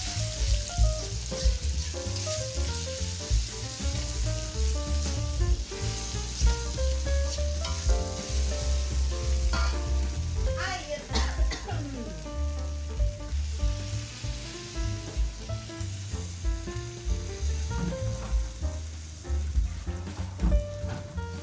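A sambal of chillies, shallots, garlic, tomato and petai with tauco (fermented soybean paste) sizzling as it fries in a pan and is stirred, under background music.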